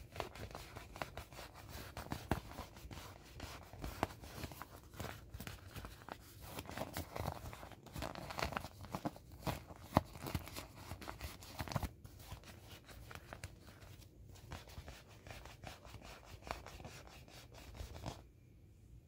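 Hands rubbing, pressing and squeezing a small inflatable elephant of soft shiny vinyl: a busy run of rubbing and crinkling noises from the plastic under the fingers, which stops about a second before the end.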